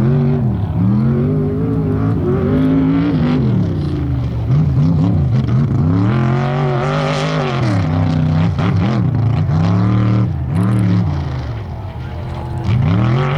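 Off-road race vehicle's engine running hard, its pitch climbing and dropping again and again as it revs up and falls back. It dips in level briefly near the end.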